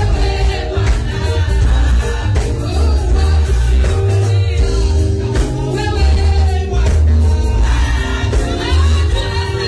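Gospel song sung by a group of women through a PA, over amplified accompaniment with a heavy deep bass line.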